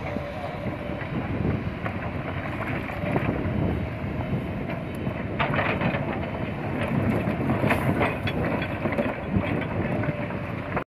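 Heavy construction machinery running: the diesel engines of a concrete mixer truck and excavators, with irregular metallic clanks and knocks from the machines working among boulders.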